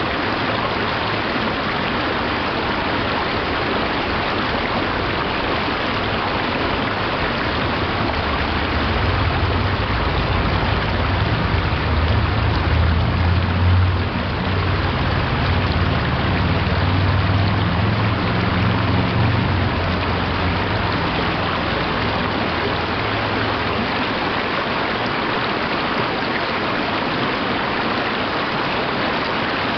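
Mountain stream rushing over rocks, a steady even water noise. A low rumble swells beneath it about eight seconds in, is strongest a few seconds later, and fades out around twenty-four seconds.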